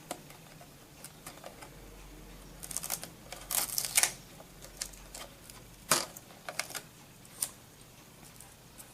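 Hands peeling a warranty tape off the Blu-ray player's casing: scattered light clicks and taps, with a short rasping tear of the tape about three and a half seconds in and a sharp click near six seconds.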